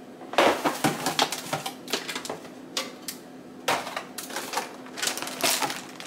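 Irregular clicks, taps and knocks of clear plastic food containers being handled and set down, with crinkling of a plastic bag of cut pineapple.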